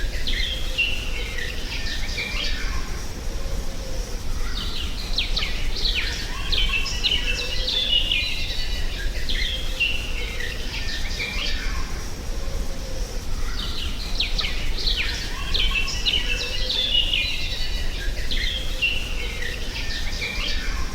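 Birds chirping and twittering in busy stretches that come and go every few seconds, over a steady low background rumble.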